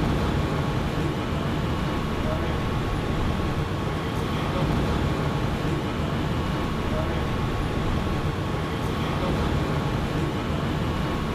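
Steady low rumble of vehicle traffic, with a faint steady whine.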